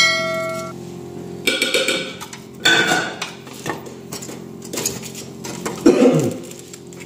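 Metal tongs clinking and scraping against a wire rack while roasted chicken pieces are lifted off it, with a short ringing clang at the start and a few clatters after. A steady low hum runs underneath.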